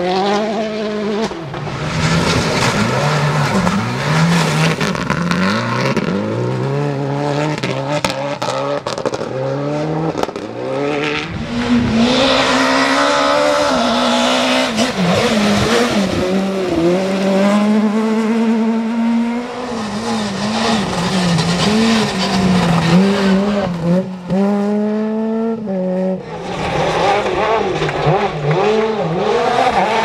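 Rally cars driving flat out on gravel, one after another. Their engines climb in pitch and drop back at each gear change, over the hiss and spray of tyres throwing up gravel.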